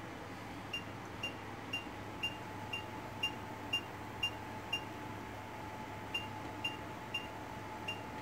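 Short high electronic beeps, about two a second: nine in a row, then after a pause of about a second and a half, four more, over a faint steady hum.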